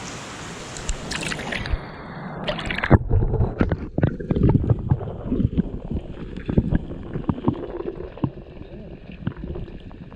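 Steady rush of river water for about two seconds, then the rush drops away and irregular close knocks and low thumps take over, from handling near the microphone.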